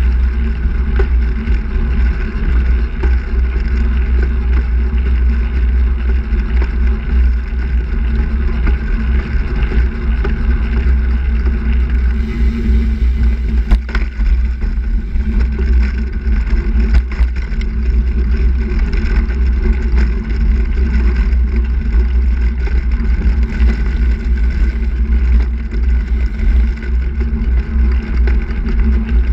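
Steady wind buffeting and road rumble on a camera mounted on a moving handbike, with one short click about halfway through.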